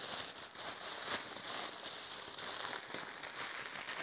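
Clear plastic packaging bag crinkling as it is handled and pulled open around a cap, with a few sharper crackles.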